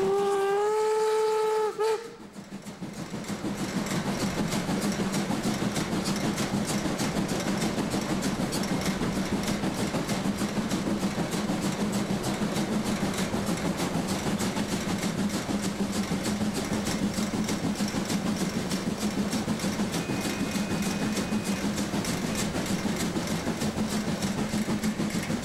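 Steam whistle of BR 01.5 steam locomotive 01 509 blowing for about two seconds and cutting off sharply. It is followed by the locomotive's exhaust beats in a fast, steady rhythm as it works up the steep Schiefe Ebene grade.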